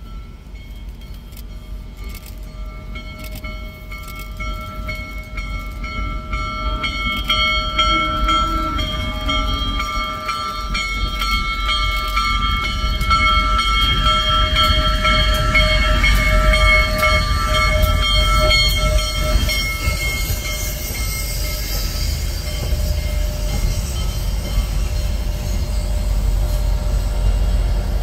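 Union Pacific 4014 'Big Boy' steam locomotive sounding its chime whistle in long blasts with short breaks, growing louder as it approaches and passes, over the deep rumble of the train rolling by. The whistle stops about three-quarters of the way in, and the rumble of the passing cars carries on.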